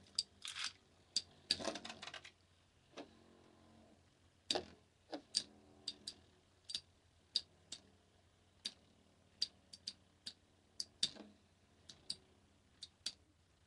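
Two metal-wheeled Beyblade spinning tops clashing against each other in a plastic stadium: irregular sharp clacks, sometimes several a second, with a few louder hits.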